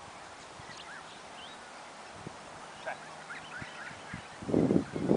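Birds chirping in the background, with scattered short calls and whistles. About four and a half seconds in comes a louder, rough burst of noise lasting about half a second, and another follows right at the end.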